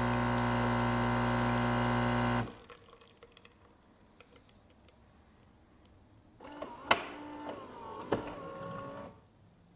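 Gaggia Brera espresso machine's pump humming steadily as the shot is brewed, then cutting off abruptly about two and a half seconds in. After a quiet pause the machine makes a few seconds of whirring and shifting tones with sharp clicks, the loudest click just before the seven-second mark.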